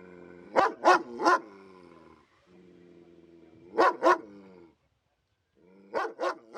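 Police dog barking in quick volleys: three barks, then two, then three more. Between the volleys it holds a low, drawn-out growl.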